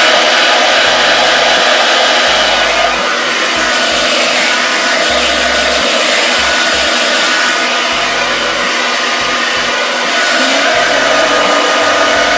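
Handheld hair dryer blowing steadily on wet hair. Its sound shifts a little as it is moved around the head.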